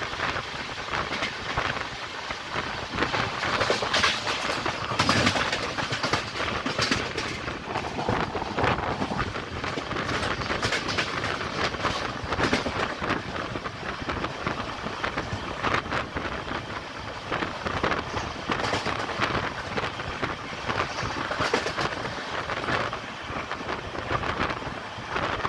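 Train in motion, heard from aboard: a steady rushing noise of wheels and air, with frequent irregular clicks and clatters from the wheels on the track.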